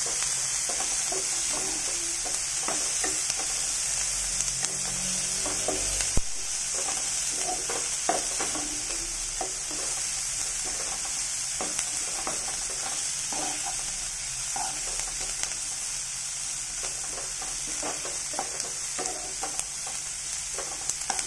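Chopped onions sizzling in hot oil in a nonstick pan on a low flame, sautéing toward golden brown, while a wooden spatula stirs and scrapes them in irregular strokes. A single sharp knock about six seconds in.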